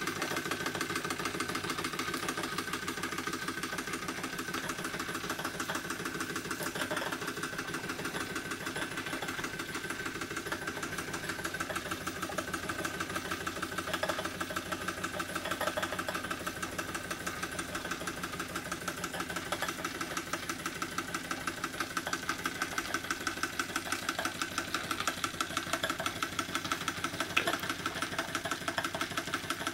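Wilesco D406 toy steam traction engine running on live steam, with a fast, even run of exhaust chuffs. It is working under the load of a belt-driven Baker fan.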